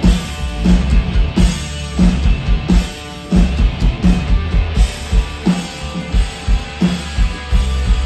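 Live rock band playing loudly: a drum kit pounding out a steady beat under distorted electric guitars and bass guitar, with a brief drop about three seconds in.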